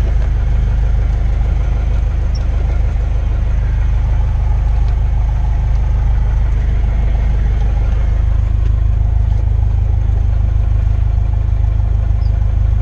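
Cessna 172S's fuel-injected four-cylinder Lycoming engine and propeller running steadily on the ground. The low note shifts slightly about eight seconds in.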